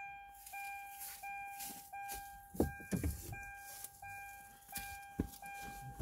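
A car's electronic warning chime beeping steadily, about three beeps every two seconds. A few sharp knocks and rustles come around the middle and near the end.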